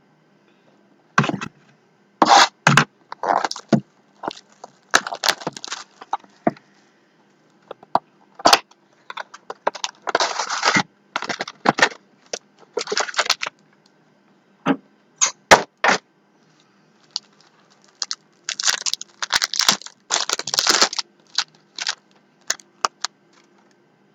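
Basketball trading cards and their plastic packaging being handled on a table: irregular scraping and crackling rustles with sharp clicks, in bursts of about half a second to a second, the longest scrape about ten seconds in.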